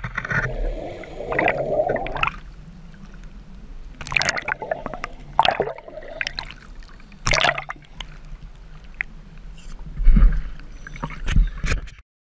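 Scuba diver's exhaled bubbles from the regulator heard underwater, coming in bursts every few seconds over a low rumble. The sound cuts off suddenly near the end.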